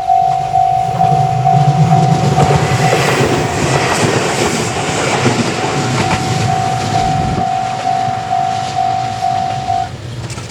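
Japanese railway level-crossing alarm ringing its electronic bell about twice a second while a train runs over the crossing. The train's wheels and running noise are loudest a few seconds in and die away, and the bell stops near the end.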